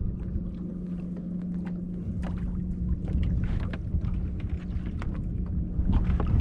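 Outdoor ambience aboard a small fishing boat: wind and water against the hull, with a steady low hum underneath and scattered light knocks and clicks of gear being handled in the boat.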